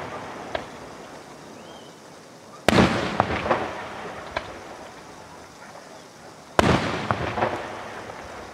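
Aerial firework shells bursting: two sharp bangs about four seconds apart. Each is followed by a few smaller pops and a long fading tail.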